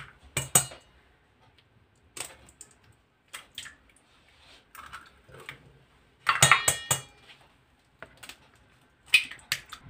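Eggs tapped and cracked against a stainless steel mixing bowl, the bowl ringing briefly: scattered sharp knocks, with a loud cluster of ringing taps about six and a half seconds in and another near the end.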